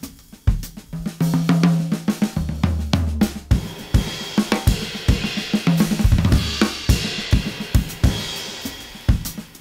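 Gretsch drum kit with Meinl cymbals played with sticks: a groove with ringing tom and floor-tom hits in the first three seconds, then cymbals washing over the beat from about four seconds in. It is captured by one overhead mic and one bass-drum mic, so the whole kit sounds roomy.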